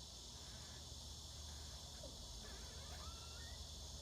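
Steady high-pitched buzz of insects, with a few faint short chirps around the middle.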